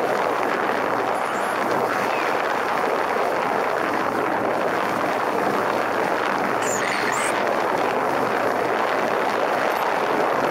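Motorcycle riding at speed: steady wind rush over a helmet-mounted camera, with the engine running underneath.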